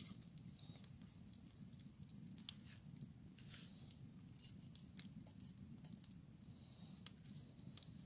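Wood campfire burning quietly, with a handful of faint, sharp crackles and snaps from the burning wood scattered through the seconds.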